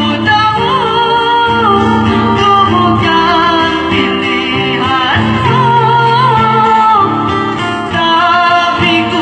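A woman singing a melodic song into a microphone, accompanied by an acoustic guitar.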